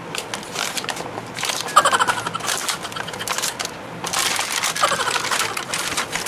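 Stiff plastic blister packaging being cut with a utility knife and pulled apart: crackling clicks and crinkles, with a brief squeak of plastic, thickest about two seconds in and again about four seconds in.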